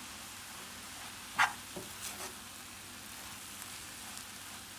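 Chopped spinach sizzling steadily in a frying pan as it cooks down, stirred with a wooden spatula, with one sharper scrape of the spatula about a second and a half in.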